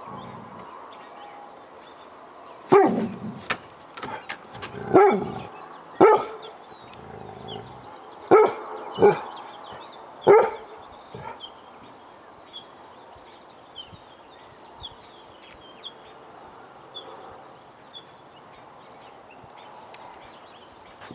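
A dog barking: six loud single barks, spaced one to two seconds apart, in the first half, then it stops.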